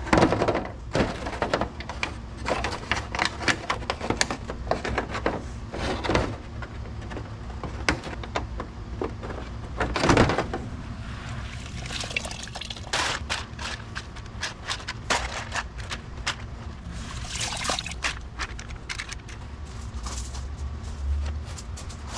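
Hands scooping soaked wheat seed out of a bucket of water, with irregular splashes and drips, among clicks and clatter from plastic seed trays.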